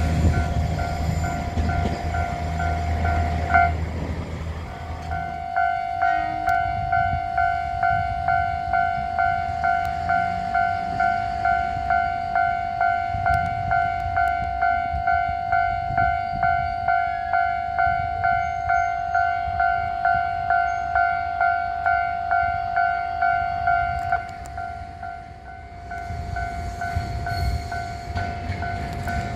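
Japanese level-crossing warning alarm ringing steadily at about two strokes a second, with a train rumbling past over it in the first few seconds.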